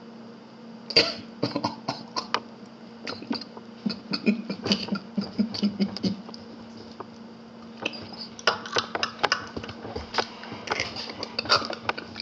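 A man's stifled, breathy laughter with scattered sharp clicks, over a steady hum from a webcam microphone.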